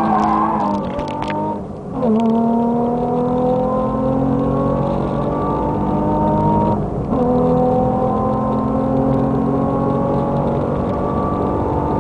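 Nissan 350Z's V6 with an Amuse full exhaust accelerating hard, heard from inside the car. The engine note climbs steadily with the revs, and upshifts about two seconds in and again near seven seconds briefly drop the pitch before it climbs again.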